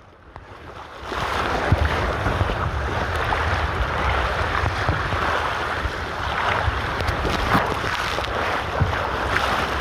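Water rushing and spraying around a rider sliding feet first down a water-slide flume, with wind buffeting the microphone; the rush starts about a second in and then runs steadily.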